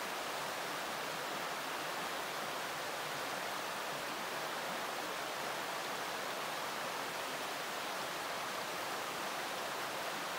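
Steady rush of water from a small waterfall and a stream cascading over rocks, an even, unbroken sound.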